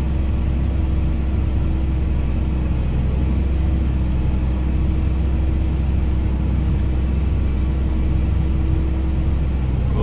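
Farm tractor engine running steadily under load, heard from inside the cab while a grain cart's unloading auger pours shelled corn into a truck trailer. It makes a steady low drone with a constant hum through it.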